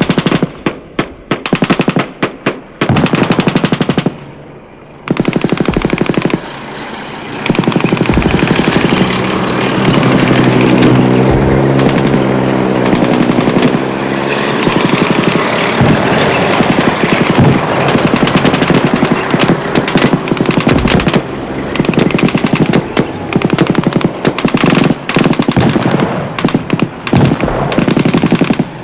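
Battle sound effect of machine-gun fire: a few separate shots, a short lull, then near-continuous rapid bursts, with a low droning tone under the firing for a few seconds near the middle.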